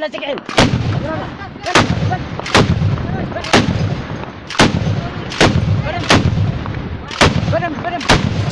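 Tripod-mounted, belt-fed heavy machine gun firing single shots, about one a second, nine in all, each loud crack trailing off in a low boom.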